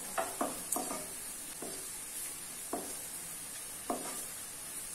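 A spatula stirs gram flour into fried onions in a nonstick kadai: irregular scrapes and taps against the pan, several in quick succession in the first second, over a steady sizzle of hot oil.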